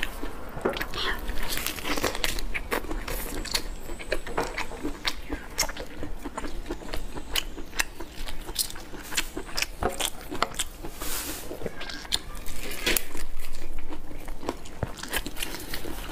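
Cooked lobster shell being cracked and pulled apart by hand, with bites of the meat: an irregular run of sharp clicks and crackles, louder for a moment about two-thirds of the way in.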